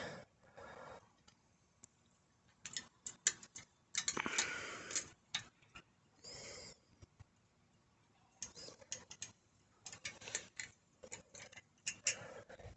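Wrench and bicycle brake caliper hardware clicking and scraping as the brake pad bolts are tightened and the pads are lined up. The clicks come in scattered clusters, with a longer scraping stretch about four seconds in.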